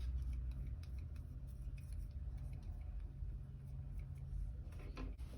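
Paintbrush working pearl paint onto a pine cone's scales: faint scattered light ticks over a low steady hum, with a sharper click near the end.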